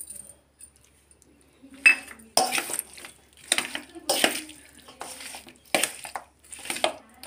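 Slotted metal spoon scraping and clinking against a steel bowl while chicken pieces are mixed with curd. The strokes repeat about once or twice a second, after a sharp clink about two seconds in.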